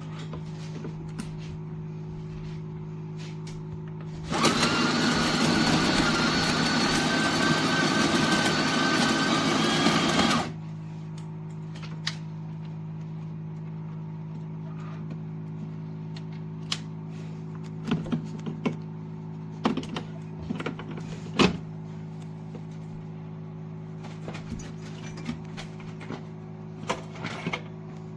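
De'Longhi La Specialista Maestro espresso machine running with a steady buzzing hum. About four seconds in, a loud hiss starts, runs for about six seconds and cuts off abruptly. Light clicks and knocks follow.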